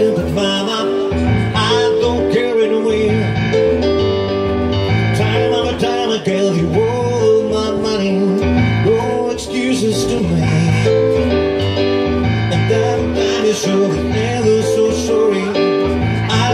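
Live band music led by guitar over a steady, repeating bass line, with a melody line but no clear sung words.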